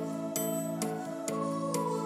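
Soft new-age background music: sustained held chords with light struck notes about twice a second.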